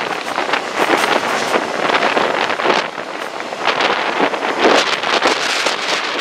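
Wind buffeting the microphone at the open window of a moving Chepe passenger train: a loud, ragged, gusty rush with the train's running noise underneath.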